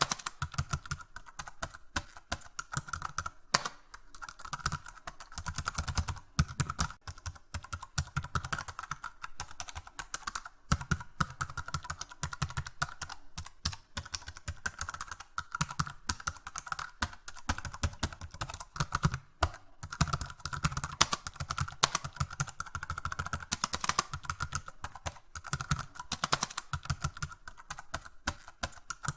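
Typing on a keyboard: a fast, continuous stream of keystroke clicks, several a second, with no pauses.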